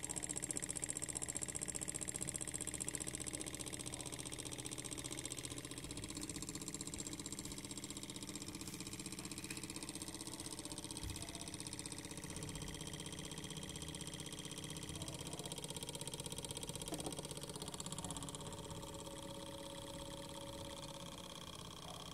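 Small laminar-flow Stirling engine running steadily on an alcohol lamp's flame, its flywheel spinning with a fast, even rhythmic clicking.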